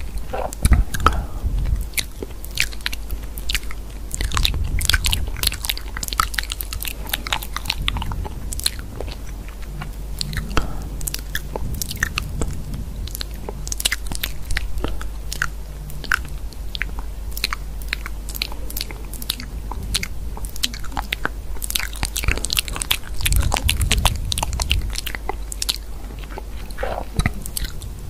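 A dense, irregular run of small crisp clicks and crunches over a steady low hum, with a few duller low thuds about five seconds in and again near the end.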